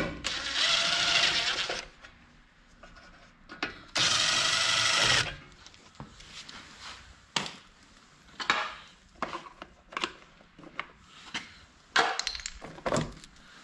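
Power driver spinning out the two fasteners of a snowblower's top plastic cover, in two runs of about a second and a half and a second. Then the loosened fasteners and cover are handled, with scattered clicks and taps.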